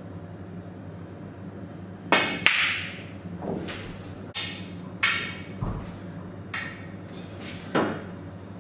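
A snooker cue strikes the cue ball and two sharp, ringing clicks of ball on ball follow, then a string of single knocks from the balls and cushions and from balls being set back on the cloth.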